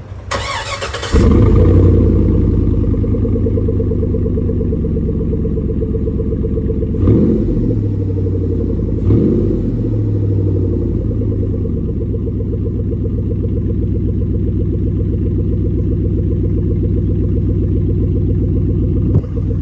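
2007 Hummer H2 V8 with aftermarket dual exhaust being cranked and started: the starter whirs briefly, the engine catches about a second in and settles into a steady idle, with two short throttle blips a couple of seconds apart near the middle.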